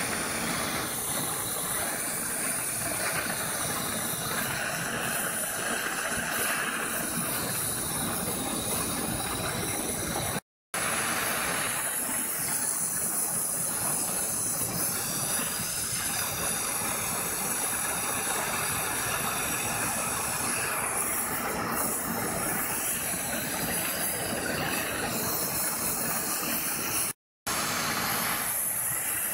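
Hand-held gas torch burning with a steady hiss as its flame heat-colours a polished titanium knife handle scale. The hiss cuts out briefly twice, once about a third of the way in and once near the end.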